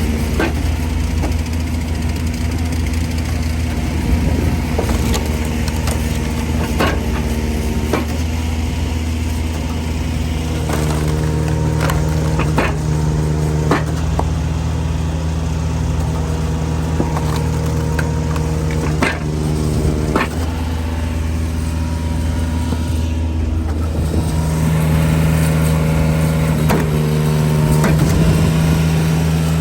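Engine-driven Eastonmade hydraulic log splitter running steadily. The engine bogs into a heavier note under load from about 11 to 14 seconds and again from about 24 seconds on, while logs crack and split with sharp snaps.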